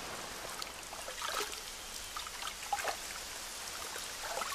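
Light rain falling: a steady hiss with scattered louder drips.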